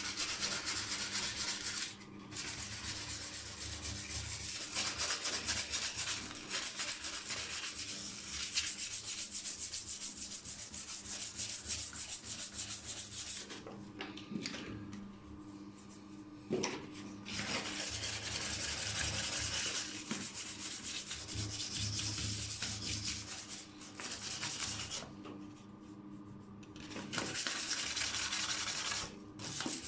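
Coarse sandpaper rubbed by hand over hardened two-part repair filler on a bathtub's enamel, a scratchy back-and-forth hiss of quick strokes that stops briefly a few times. The filler is being sanded flush so that no edge can be felt where it meets the enamel.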